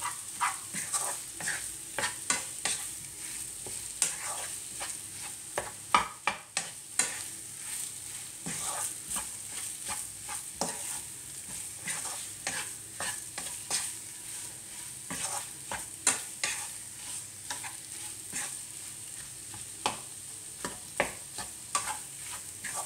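Wooden spatula scraping and knocking irregularly against a non-stick kadai as boiled potato pieces in onion-spice masala are stirred and broken up, over a steady sizzle of frying.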